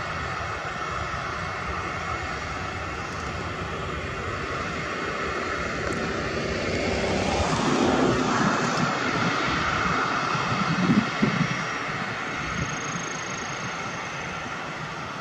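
Jet airliner's turbofan engines running as it taxis: a steady whine over a rumble that grows louder about halfway through as the aircraft moves past.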